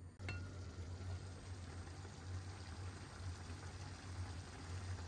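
Green lentils and bulgur simmering in a pan, a steady crackling bubble. A short ringing clink comes just after the start.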